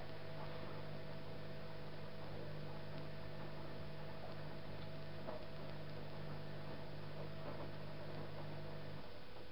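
Privileg Single 42614 washing machine humming steadily mid-programme, with a few faint clicks. The hum cuts off sharply about nine seconds in.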